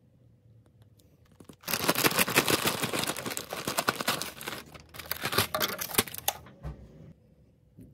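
Packaging being torn open and crinkled: a dense crackling starting a little under two seconds in and lasting about four and a half seconds, with a soft thump near the end.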